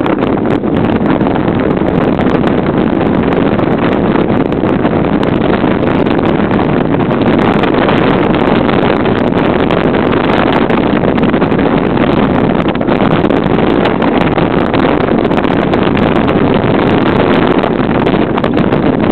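Bobsleigh runners rumbling and scraping over the iced track at high speed, a loud, steady rumble with wind on the microphone.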